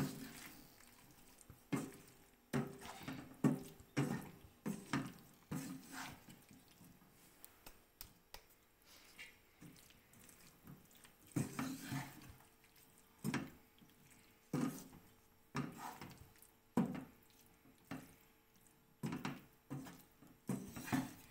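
Wooden spatula knocking and scraping against a non-stick wok as saucy penne pasta with chicken is tossed, in irregular strokes about once a second, with a faint steady hum underneath.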